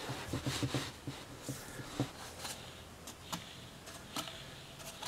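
Handling noise from an electric cooling-fan assembly being worked by hand while its motor is oiled: a quick run of soft knocks near the start, then scattered small clicks and light rubbing.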